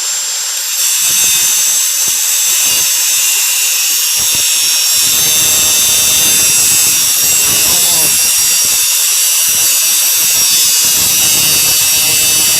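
Small high-speed power tool with a cutting wheel grinding through a steel handcuff: a steady high-pitched whine, with the grinding getting louder about a second in and rougher about halfway through as the wheel bites into the cuff.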